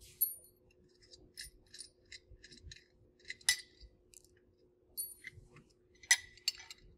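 Nuts, bolts and steel mounting brackets of a conveyor belt positioner being unbolted and handled by hand: a string of small metallic clicks and clinks, some ringing briefly, with louder taps just after the start, midway and about six seconds in.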